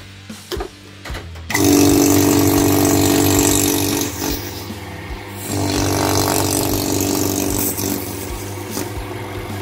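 VALUE rotary-vane vacuum pump running. It turns loud about a second and a half in, eases off for a moment around four seconds, is loud again, then settles to a lower steady run near the end. The changes come as the open end of its intake hose is handled.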